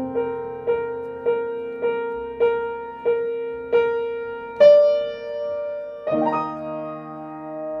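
Upright piano played slowly: one note struck over and over about every half second, then a louder, higher note and, about six seconds in, a fuller chord with lower notes that rings on.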